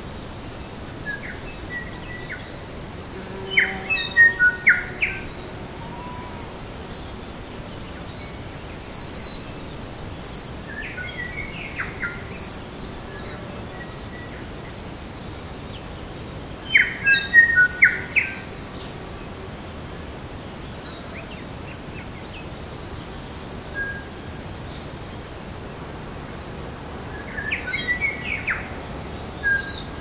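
Songbirds singing: short phrases of chirps, whistles and clicking notes come in four main bursts, with odd single notes between them, over a steady background hiss.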